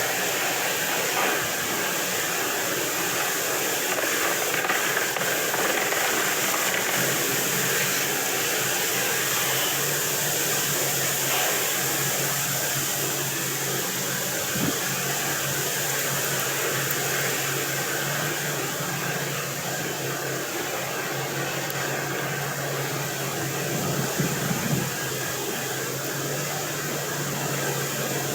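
Steady rushing noise of wind blowing across the microphone, with a faint low steady hum coming in about halfway.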